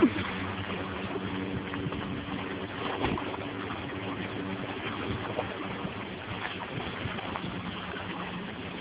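Steady creek-side water noise with a low, even hum under it, heard through a handheld phone's microphone; there is a handling bump at the start and another about three seconds in.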